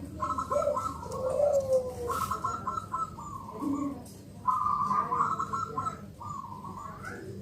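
Bangkok-bred zebra dove (perkutut) singing its cooing song: several phrases of quick stuttering notes, with lower sliding coos between them and a rising note near the end.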